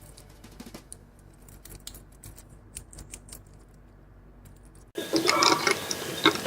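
Faint, scattered clicks and taps of die-cast toy cars and their packaging being handled. About five seconds in, a much louder, busier sound full of sharp clicks cuts in suddenly.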